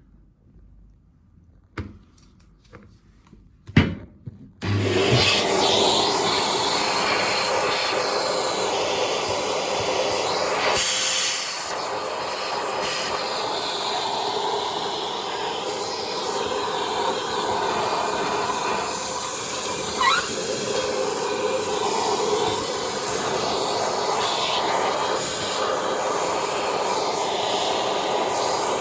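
A few light knocks, then a vacuum cleaner switches on a few seconds in and runs steadily, sucking caked-on dust from the inside of a gas fan heater.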